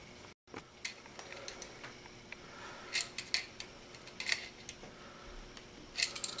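Light metallic clicks and clinks from steel parts of a homemade spanner, perforated square steel tubing with bolts, washers and hex nuts, as its nuts are tightened down with a wrench. The clicks come in small clusters, about three seconds in, just after four seconds, and again near the end.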